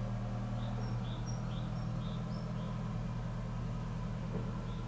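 The boat's twin inboard engines idling with a steady low hum. Short high chirps come a few times a second, mostly in the first couple of seconds.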